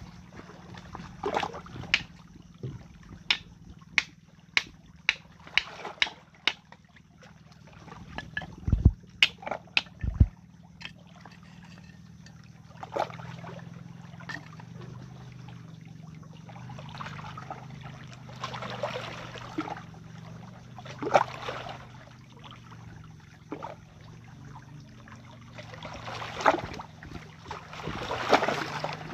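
A hand-held stone striking a seashell against rock to crack it open: a run of sharp knocks, about two a second, through the first ten seconds, then a few scattered knocks, with softer rustling noise later on.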